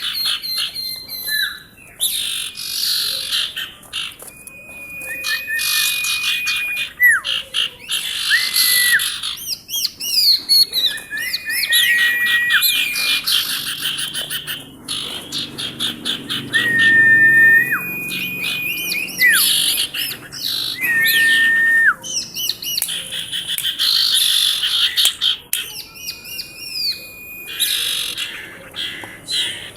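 Female common iora singing busily: a run of flat, held whistles, each bending down or up at the end, mixed with fast chattering and buzzy trills.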